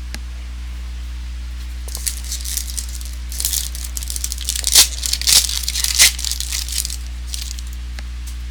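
A trading card pack's wrapper being torn open and crinkled in the hands. It makes a run of crackling rips that builds up about two seconds in, peaks in the middle and stops a second or so before the end.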